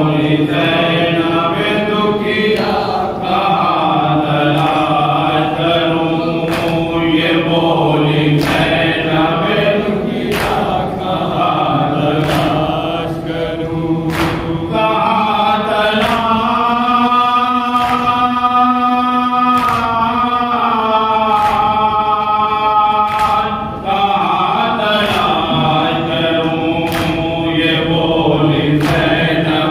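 Noha being recited: a lead male reciter chants a mourning elegy through a microphone, backed by a group of men, with matam chest-beating slaps about every two seconds keeping the beat. A long held line runs through the middle of the passage.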